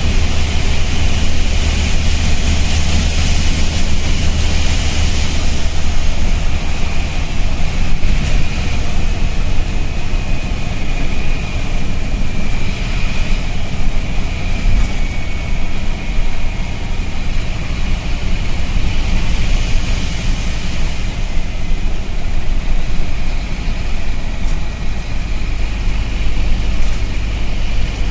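Scania N230UB bus heard from inside the saloon while on the move: steady diesel engine and road rumble with a continuous hiss over it, the bus's loud air leak.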